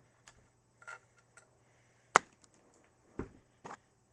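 A few sharp metal clicks and knocks, with one loud click just after two seconds in, as an Allen key is worked on the bolts of a scooter compression clamp.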